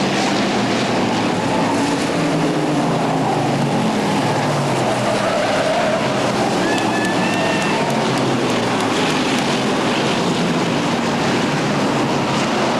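Several stock car engines running at speed around an oval track, a loud, steady wash of engine noise with engine notes falling and rising as cars go past.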